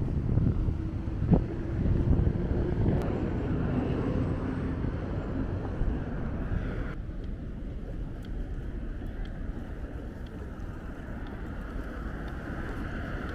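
Outdoor city street ambience: a low traffic rumble with wind on the microphone, louder in the first half. About seven seconds in the sound changes abruptly to a quieter, thinner hiss.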